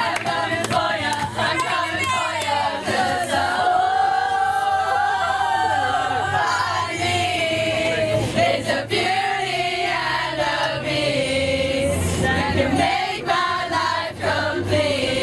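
Group of voices singing together, holding and gliding through long notes, with a few sharp knocks in between.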